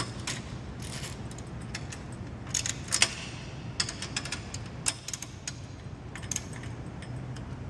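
Socket wrench tightening a lock nut on a metal diagonal brace: irregular metallic clicks and clinks in short runs, the loudest about three seconds in.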